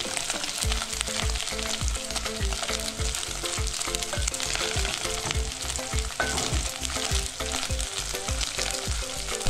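Small dried silver cyprinid fish (omena) sizzling as they fry in hot cooking oil in a metal pot, stirred with a spatula. A steady low beat of about three thumps a second runs underneath.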